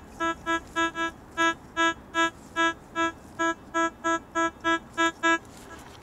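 A handheld metal detector beeping on a buried metal target: short buzzy electronic tones of one pitch, about three a second and unevenly spaced, stopping near the end.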